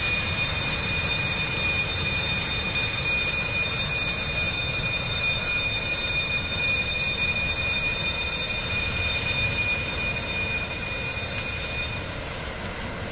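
Freight train rolling past: a steady rumble of wagons on the rails with a constant high-pitched wheel squeal above it. About a second before the end the squeal stops and the sound drops to a quieter rumble.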